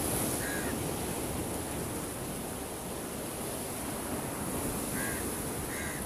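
Strong sea waves breaking and washing over shore rocks: a steady rush of surf. A few short, faint high chirps sound over it, near the start and again near the end.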